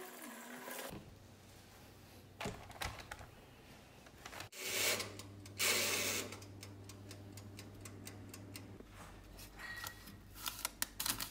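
Tap water running into a sink for under a second, then scattered light clicks and two short rushing noises over a low hum. Near the end comes a quick run of light clicks as a metal skewer pokes baked sweet potatoes on a toaster-oven tray.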